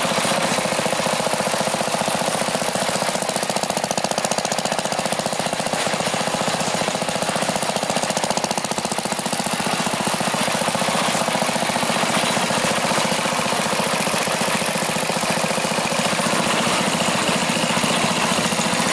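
Briggs & Stratton 190cc horizontal-shaft overhead-valve single-cylinder engine running steadily on the bench, firing in rapid, even pulses. It is running after its ignition coil has been replaced and the air gap set.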